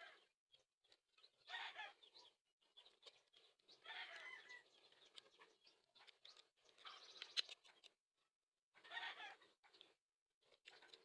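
Faint bird calls: five short calls a couple of seconds apart, with small clicks between them.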